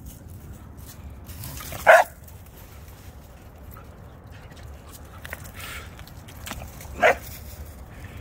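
A dog barking twice, single short barks about five seconds apart.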